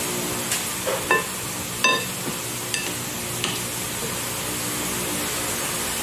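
A metal knife clinking against a glass salad bowl while a rice salad is stirred: about half a dozen short, ringing clinks in the first three and a half seconds, the loudest about two seconds in, over a steady background hiss and hum.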